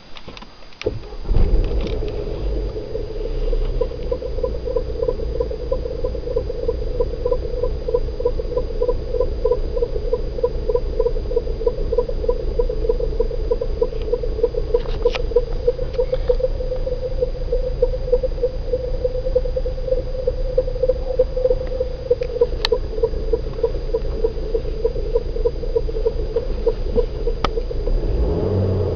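1998 Opel Vectra 1.8-litre engine starts up about a second in, then runs steadily with a rapid, regular squeaking chirp over it: the strange sound the owner is asking about.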